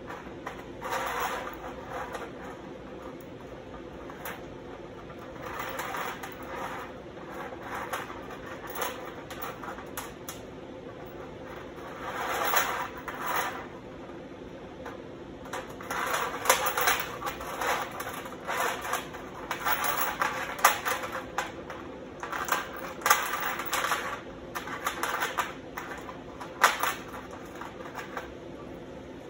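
Steel chain links clinking and scraping against a steel sheet as they are nudged into shape by hand, in irregular bursts of small metallic rattles, over a steady low hum.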